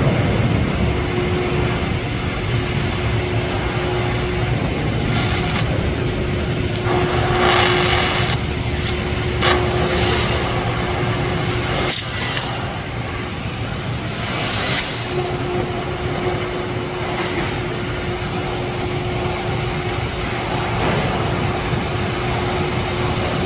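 Welding equipment humming, with a steady tone that cuts off after a sharp click about halfway through and comes back a few seconds later. Brief hisses and a few clicks occur in between.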